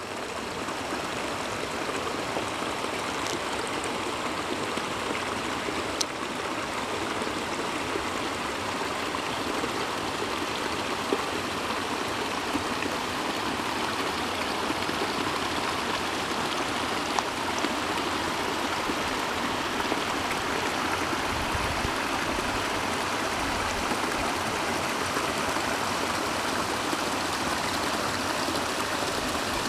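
Water running through a beaver dam: a steady, unbroken rush of flowing water.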